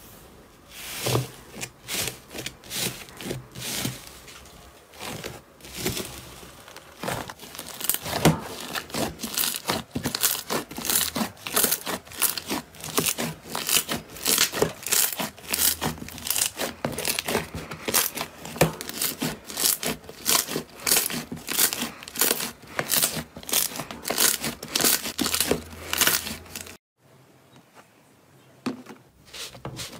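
Hands pressing into and kneading a tub of green slime covered with paper labels: dense crackling and popping clicks that cut off suddenly near the end.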